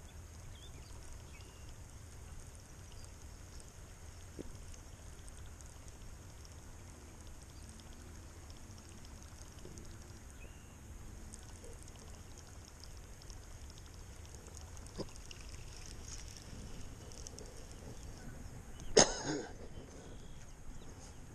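Quiet pondside outdoor ambience: a steady low rumble with a steady high-pitched buzz over it, a few faint ticks, and one sharp click near the end.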